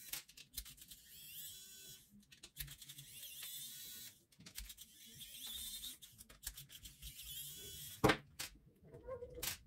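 Precision screwdriver turning out the small screws of a cordless soldering iron's plastic housing: faint scraping and small clicks, with two sharper clicks near the end.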